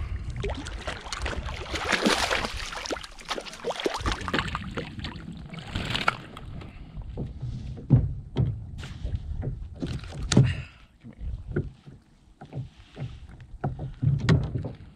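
A hooked bass splashing and thrashing at the surface beside a kayak as it is reeled in and landed. After about six seconds this gives way to scattered knocks and bumps as the fish is handled and unhooked in the kayak.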